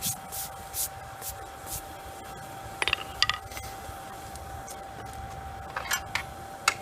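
Light metal-on-metal clinks and taps from forging tools on steel: a quick cluster about three seconds in and a few more near the end, the louder ones leaving a brief ring. A steady high hum runs underneath.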